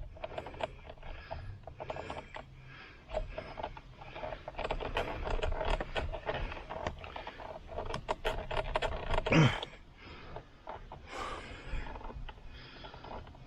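Clicks and scrapes of a screwdriver and hands working the spring release clips of a Ford F-150 steering-wheel airbag module, with irregular rustling and breathing. About nine seconds in there is one loud, short sound that falls in pitch.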